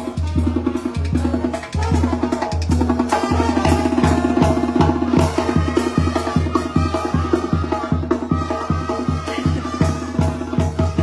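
Banda music: a brass band playing on a steady beat, with drums and a low bass line.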